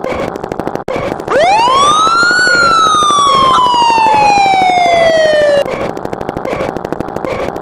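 A siren-like sound effect: one pitched tone that sweeps up quickly, then falls slowly for about three seconds and cuts off abruptly, over a fast, steady rattling background.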